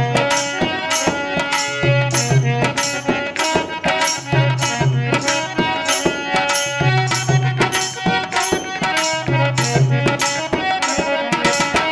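Instrumental break of a Rajasthani Holi folk song: a steady drum beat with bright percussion strokes about four times a second, a deep drum figure repeating every couple of seconds, and a held melody line, with no singing.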